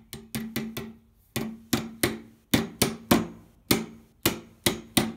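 Hammer blows driving a white plastic replacement glide onto the end of a chair's metal tube leg: about fifteen sharp knocks, light quick taps at first, then harder strikes roughly two or three a second, each with a brief low ring.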